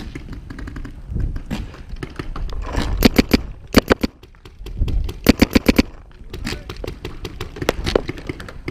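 Paintball markers firing in quick strings of shots, the loudest being a rapid run of about eight shots some five seconds in, with shorter bursts and single shots between.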